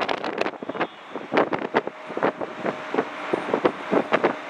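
Wind buffeting the microphone in irregular gusts, over a faint steady whine from the Airbus A330's jet engines as it taxis.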